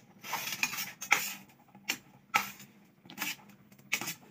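Perforated steel ladle scraping and stirring cooked green peas and chopped coriander in a steel pan: metal rasping on metal in repeated short strokes, about six of them.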